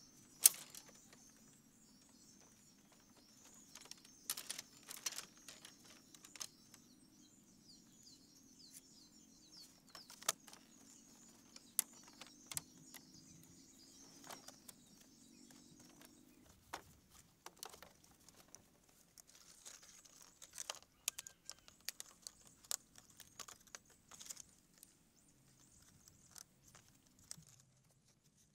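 Irregular clicks, taps and knocks of dry split-bamboo slats being handled and bound by hand on a bamboo floor, with one sharp knock just after the start.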